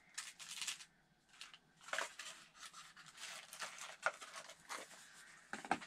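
Paper packaging and a small jewelry box rustling and scraping as they are handled, in short, irregular spurts.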